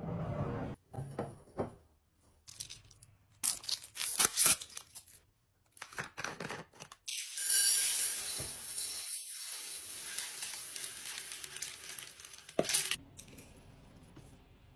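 Laundry scent booster beads poured from a plastic bottle into a glass jar: a steady pouring hiss of small beads on glass lasting about six seconds, ending with a sharp tap. Before it come several seconds of scattered clicks and knocks from handling the containers.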